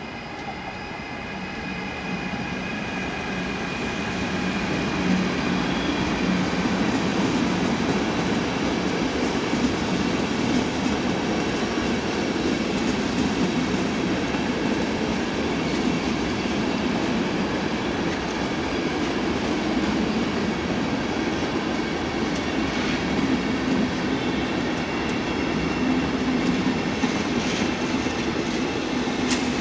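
A DB class 183 (Siemens ES64U4 Taurus) electric locomotive and its passenger coaches pass by at moderate speed. The sound grows louder over the first few seconds as the locomotive draws near, with a faint high whine from it, then settles into a steady rumble of coaches rolling past, with a few clicks of wheels over rail joints near the end.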